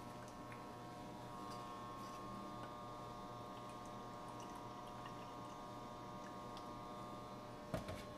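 Quiet kitchen room tone: a steady hum with several faint fixed tones and a few light ticks. Near the end comes a single knock as a plastic milk jug is set down on the counter.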